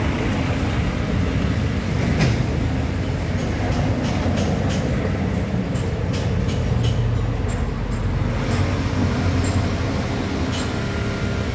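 A steady low rumble of background noise, with a scattering of short clicks and ticks through the middle.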